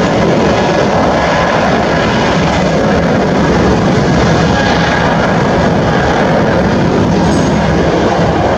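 Boeing 777-200ER's twin GE90 turbofan engines at takeoff thrust during the takeoff roll, a loud, steady jet noise with deep rumble underneath.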